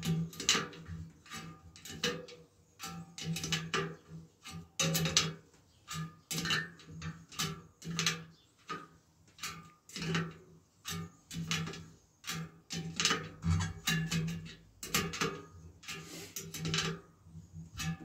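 Spoke key turning the nipples on a rear wheel's 1.8 mm steel spokes, a half turn at a time, while the spokes are tensioned: a string of irregular metallic clicks, several a second, some with short pinging rings.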